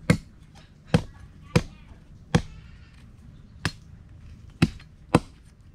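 Machete chopping through a thin green bamboo stick laid on concrete: seven sharp chops at uneven intervals, roughly one to two a second.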